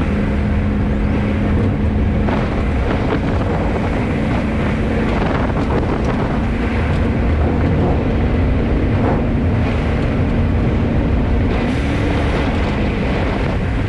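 1970 Chevrolet C10 pickup under way at a steady speed: an even engine hum with wind and road noise. The hum rises slightly in pitch near the end.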